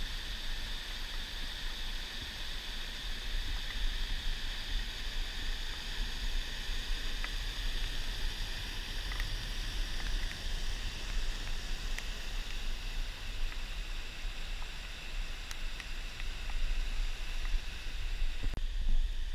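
A small forest stream rushing over bedrock cascades and chutes: a steady splashing and rushing of water, with a low rumble on the microphone underneath. The water sound thins slightly near the end.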